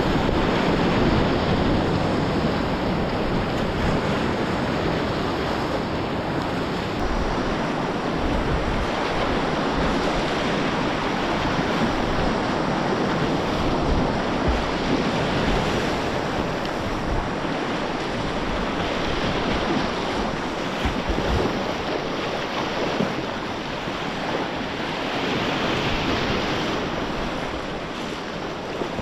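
River whitewater rushing through rapids: a steady, dense roar of moving water, with low buffeting on the action camera's microphone.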